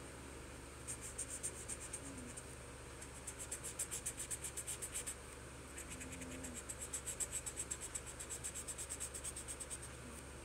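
Felt-tip marker scratching back and forth on lined paper while colouring in, about six quick strokes a second, in three runs with short pauses between.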